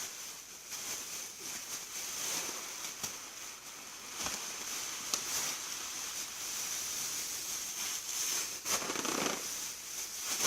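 Thin plastic bag crinkling and rustling as it is handled, with irregular small crackles throughout and a louder stretch of crinkling near the end.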